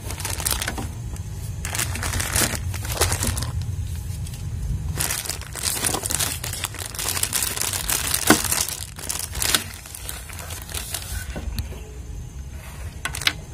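Thin LD-PE plastic bag crinkling and rustling in irregular bursts as a mini tripod wrapped in it is pulled out of its cardboard box and unwrapped.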